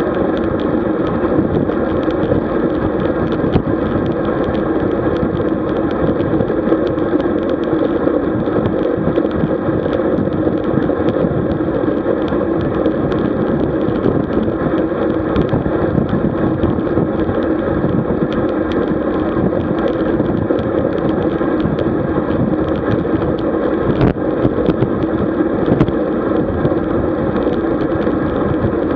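Wind rushing over a camera microphone carried along on a moving road bike, a loud, unbroken noise with a constant hum in it.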